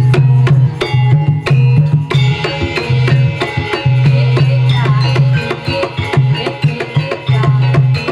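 Jaranan gamelan music: kendang hand drums playing dense, quick strokes over ringing metallophone notes, with a deep low note pulsing in and out underneath.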